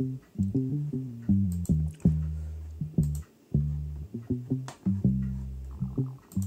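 Background music of low-pitched plucked string notes, each struck sharply and left to ring and fade.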